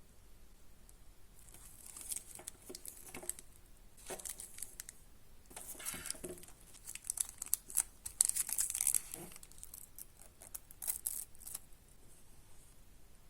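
Webcam packaging being torn and crinkled by hand, in irregular scratchy rustles and clicks, loudest about two-thirds of the way through.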